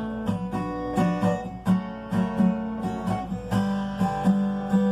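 Acoustic guitar strummed in a steady rhythm of chords, an instrumental passage between sung verses of a sertanejo song.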